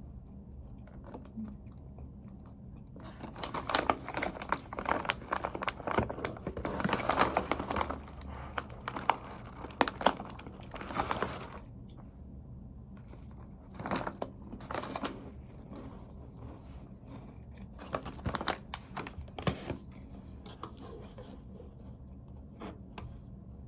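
Irregular bursts of crunching and crackling, in clusters separated by pauses.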